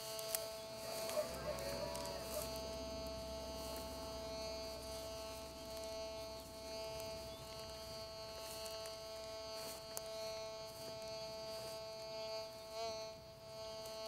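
Metal detector giving a steady electronic buzz as it is swept over the grass, several pitches held together, with a brief wobble in the tone near the end.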